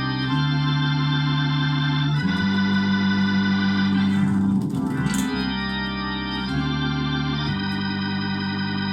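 Crumar Mojo Classic drawbar organ played through a Leslie 2103mk2 rotary speaker: sustained chords that change every second or two, with a brief sweep about halfway through.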